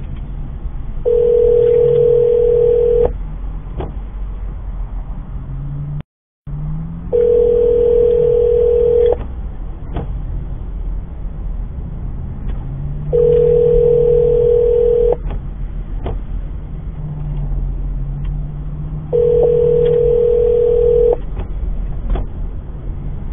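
US telephone ringback tone: a steady two-second tone every six seconds, four rings, as an outgoing call rings unanswered over the car's speakers. Steady road and engine noise runs underneath inside the car, and all sound cuts out for a moment about six seconds in.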